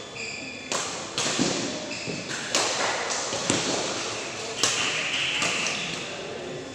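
Badminton rally: sharp racket hits on the shuttlecock about once a second, with players' footfalls on the court, echoing in a large hall.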